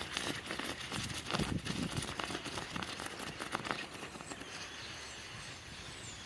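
Irregular crackling and popping as molten silver is poured into a damp sand mold, the sign of moisture left in the sand; the pops thin out after about four seconds into a faint hiss.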